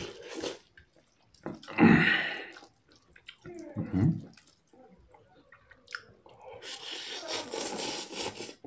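Close-up eating sounds: a couple of short loud mouth or breath sounds in the first half, then noodles slurped up in a steady hiss for about two seconds near the end.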